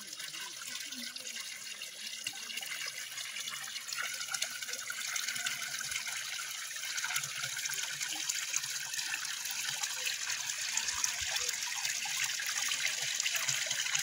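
Water running from a village fountain's spout into a stone trough: a steady splashing trickle that grows gradually louder.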